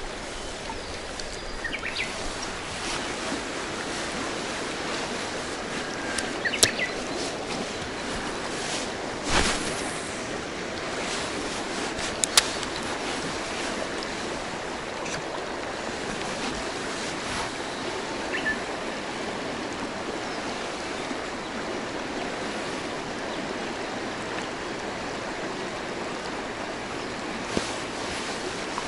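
Swift river water rushing steadily over shallow riffles, with a few brief clicks in the first half.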